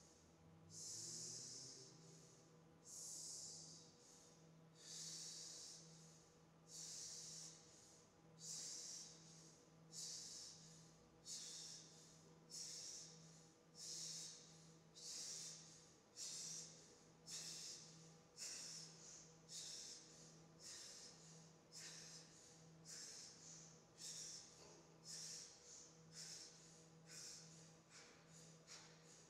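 Faint, rhythmic hissing breaths from seated dancers, one about every two seconds at first, quickening steadily to about two a second.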